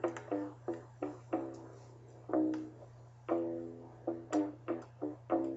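Music of plucked string notes, each struck sharply and quickly fading, over a steady low hum.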